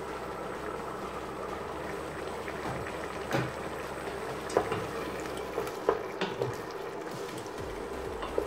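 Beef stew boiling in a stainless steel pot, a steady bubbling. From about three seconds in come a few sharp knocks as the lid is set aside and a wooden spoon stirs against the pot.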